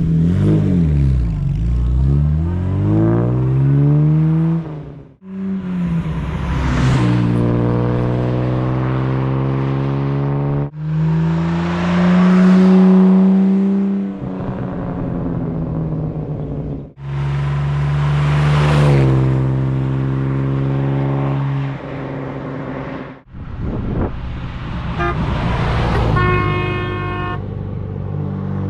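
1951 Jaguar XK120 roadster's straight-six engine in several short spliced recordings: revs falling and rising, accelerating runs with the pitch climbing, and the engine note swelling and dropping away as the car drives past.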